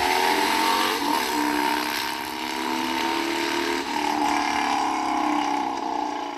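Motorcycle engine running, a sound effect under an animated intro, with a slight rise and fall in pitch and fading out at the end.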